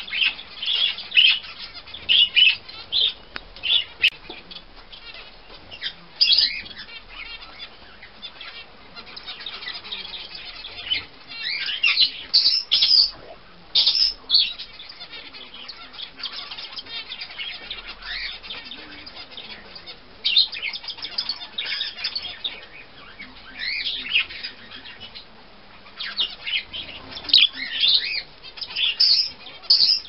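Budgerigar chirping in short bursts of quick rising and falling notes, repeated in clusters, with fluttering of its wings.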